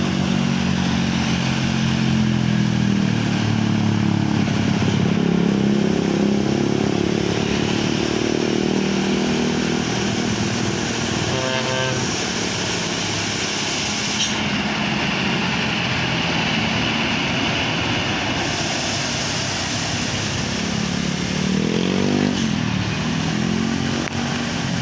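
Heavy vehicle engines on a steep hill road. A deep engine note runs for about the first ten seconds, then another engine's pitch rises and falls near the end as it passes.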